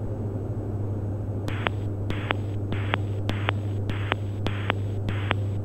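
Steady low drone of the Diamond DA42 NG's twin Austro diesel engines and propellers, heard through the headset audio in flight. From about a second and a half in it is broken by about a dozen sharp clicks, with short bursts of hiss switching on and off between them on the headset audio.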